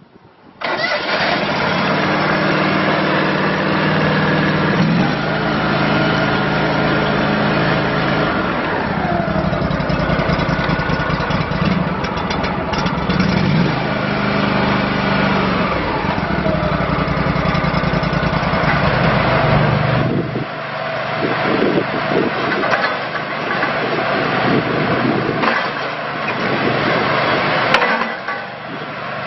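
Small Kohler engine of a Terramite T5C mini backhoe loader running, its pitch rising and falling now and then. After about twenty seconds the sound turns rougher and more uneven.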